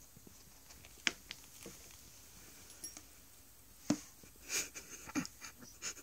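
Light taps and scuffles of a lineolated parakeet's claws on wooden floorboards as it scuttles about inside a fabric sock. A sharp tap about a second in and another near four seconds, then a quick cluster of taps and a brief rustle near the end.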